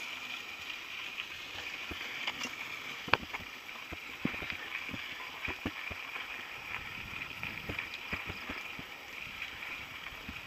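Mountain bike riding over a rough dirt trail: tyres rolling on dirt and gravel with irregular knocks and rattles as the bike goes over bumps, the loudest about three seconds in, over a steady high hiss.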